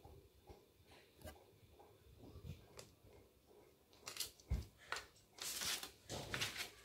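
Quiet handling sounds: a few faint taps and rustles, then from about four seconds in a run of brisk rustles as a sheet of paper and the bedspread are moved about by hand.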